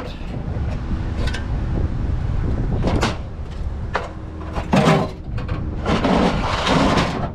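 Scrap items being shifted and packed into a vehicle: a run of separate knocks and clatters, the loudest about five seconds in and near the end, over a steady low rumble.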